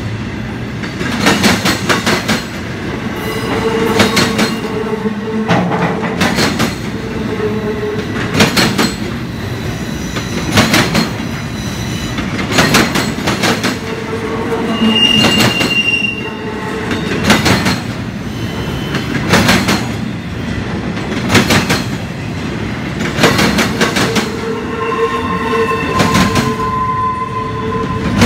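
Empty double-stack intermodal well cars of a Union Pacific freight train rolling past. The wheels clack over rail joints in pairs or small groups about every two seconds over a steady rumble, and a steady metal squeal comes and goes several times.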